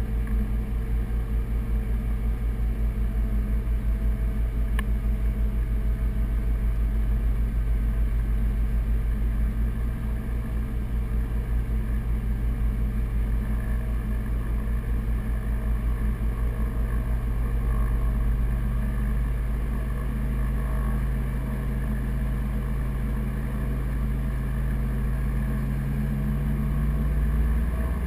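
Piper Navajo's twin piston engines and propellers heard from inside the cockpit while taxiing, running steadily with a regular throb. The engine pitch rises slightly in the second half and shifts just at the end as power is changed.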